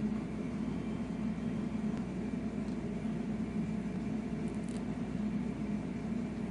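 Steady low background hum of room machinery, unchanging throughout, with a few faint small clicks about two-thirds of the way through.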